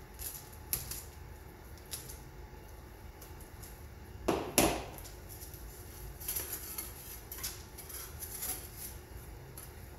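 Hobby-knife work on a thin wooden kit sheet on a cutting mat: scattered faint clicks and ticks as small parts are cut and freed, with two louder knocks about four seconds in.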